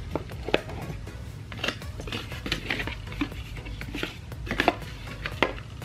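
A rigid black cardboard gift box being handled and its lid lifted off: a scatter of light taps and clicks with brief scratchy rustles of cardboard and paper.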